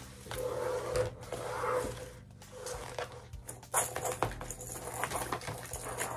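Hands handling ribbon and wreath materials: irregular rustling with light clicks and taps, louder in a few short spells.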